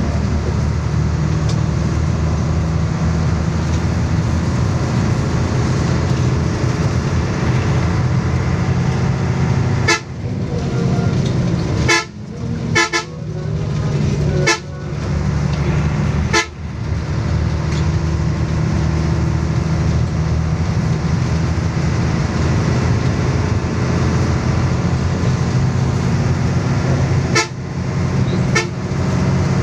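Bus engine running steadily as the bus drives along, heard from on board, with a constant low hum. Around the middle and again near the end the loudness drops suddenly several times, with short clicks, and then builds back up.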